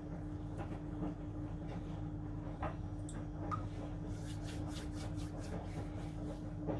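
Hands pressing and patting minced meat onto a wooden skewer: soft squishes and light pats, coming faster in the second half, over a steady low hum.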